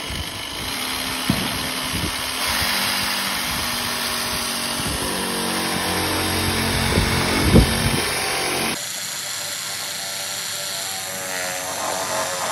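Cordless reciprocating saw running as it cuts through PVC pipe, with a sharp knock near the end of the cut. It cuts off abruptly about two-thirds of the way in, leaving a quieter background.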